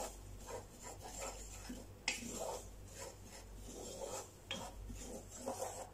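Wooden spoon stirring dry flour in a pot on the stove, making repeated soft scraping strokes, with one sharper click about two seconds in. The flour is being toasted dry, stirred constantly until it browns.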